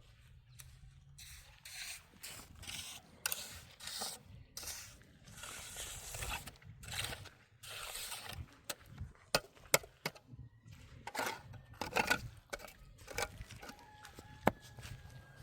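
Irregular scraping and rubbing strokes, with sharp clicks and knocks scattered among them.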